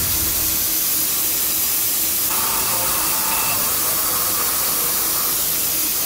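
UDM-2216 three-axis CNC machining center milling a steel mold component, heard as a steady hiss with a faint steady whine added a little over two seconds in.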